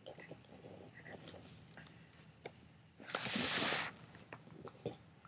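One loud, breathy snore lasting under a second, about three seconds in, amid faint small clicks.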